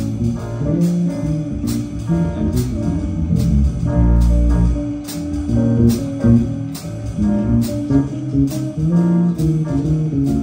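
A small jazz combo playing: piano chords and a low moving bass line over a steady cymbal beat from the drum kit.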